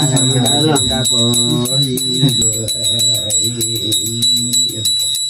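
Music: a voice singing or chanting over a steady jingling of bells.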